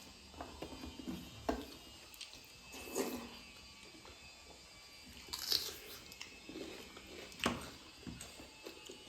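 Close-up eating sounds: chewing and mouth smacks with scattered short clicks, a few louder ones standing out.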